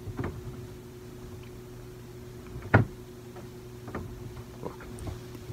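Quiet room tone with a steady low hum, broken by a few short clicks, the loudest about three seconds in.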